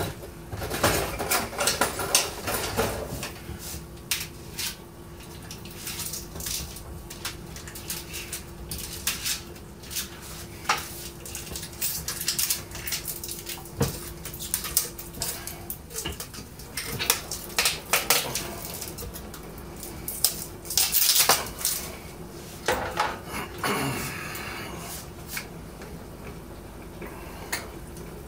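Irregular clatter of plastic brewing buckets, lids and kitchen utensils being handled, with many sharp knocks and scrapes coming in clusters. A faint steady hum runs underneath until about halfway.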